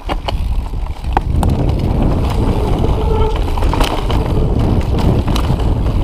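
Mountain bike riding down a dirt trail, heard from the rider's camera: a steady low rumble of wind and tyres on the microphone, with scattered clicks and knocks from the bike over the rough ground. The rumble builds up within the first second as the bike gets going.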